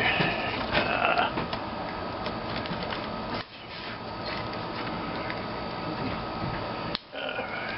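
Hand tool scraping and prying at the rubbery potting compound inside a CDI unit: a steady scratching with small clicks, broken twice by short pauses, and squeaky creaks near the start and the end.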